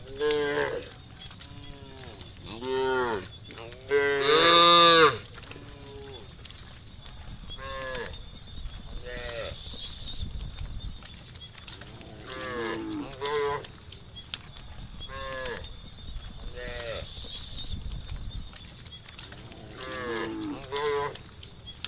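A herd of cows mooing, one short call after another every second or two, sometimes overlapping; the loudest and longest moo comes about four seconds in.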